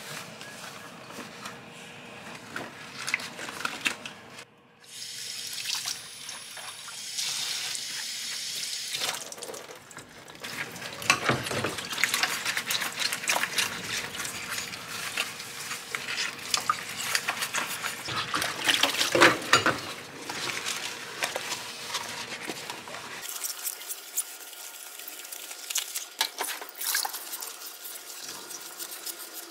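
Dishes being washed by hand in a stainless steel sink: water from the tap, rubber-gloved hands scrubbing bowls with a sponge with a squeaky-clean rubbing, and the knocks and clinks of dishes.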